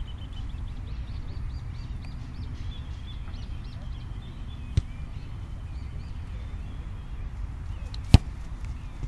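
Two sharp kick impacts about three and a half seconds apart, the second much louder, over a steady low rumble of wind on the microphone. Birds chirp in quick repeated notes through the first half.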